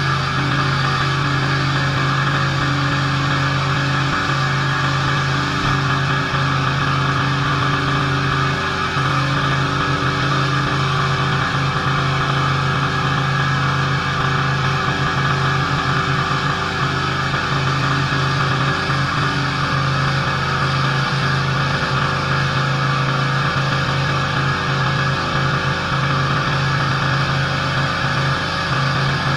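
Pressure washer's engine running steadily under load, with the constant hiss of high-pressure water spraying onto a driveway.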